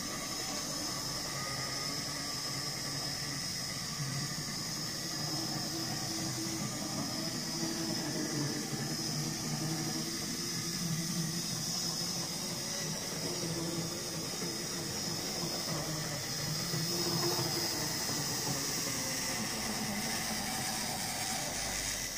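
Hornby OO gauge J94 0-6-0ST model tank locomotive running along the track with a short rake of wagons: a steady electric motor hum with hiss and the wheels rolling on the rails, a little louder about three-quarters of the way through.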